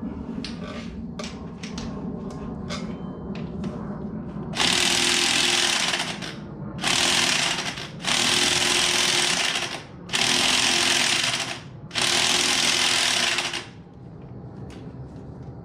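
Old corded electric impact wrench hammering on a stuck bolt in five bursts of one to two seconds each, after a few seconds of handling clicks; it fails to break the bolt loose.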